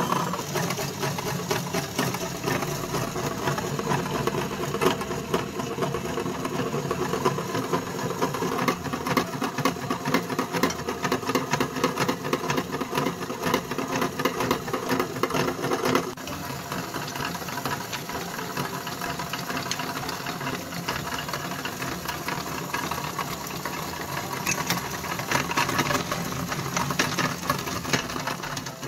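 Electric meat grinder switched on and running: a steady motor sound thick with fine rattling and clicking as it grinds coloured crayons, starting abruptly and changing slightly about halfway through.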